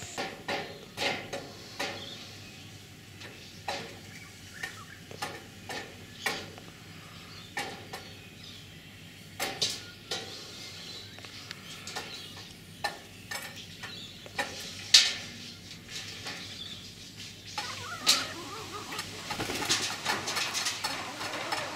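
Domestic hens moving about: a run of irregular sharp taps and knocks, the loudest about fifteen seconds in, with hen sounds growing busier over the last few seconds.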